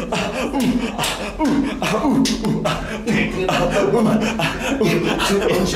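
A person beatboxing: mouth clicks and hissing snare sounds mixed with short falling vocal bass sounds, in an uneven rhythm of a few beats a second.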